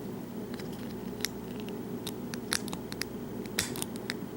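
Scattered small metallic clicks and scrapes of pliers working at a steel circlip on the back of a lock cylinder, prying to get underneath it.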